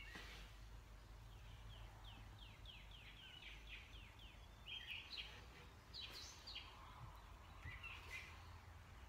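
Birds chirping faintly in the background: a quick run of short descending chirps, about three a second, then scattered single chirps.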